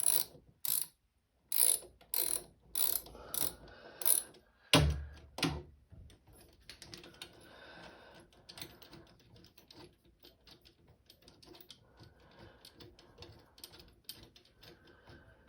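Hand ratchet clicking in short strokes, about two clicks a second, as screws are driven in by hand. A heavier knock comes about five seconds in, then only faint handling noise.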